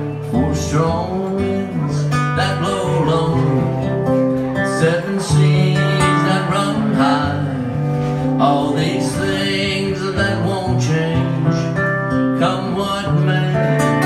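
Instrumental break of a live country song: pedal steel guitar plays the melody in sliding, bending notes over a strummed acoustic guitar.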